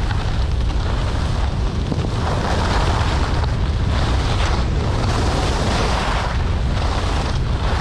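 Wind buffeting the microphone of a skier gliding downhill, a steady loud rush with a heavy low rumble, mixed with the hiss of skis sliding on packed snow.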